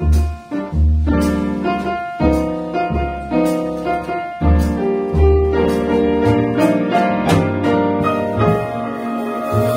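Live jazz piano trio: a grand piano plays chords and melodic runs over deep upright bass notes.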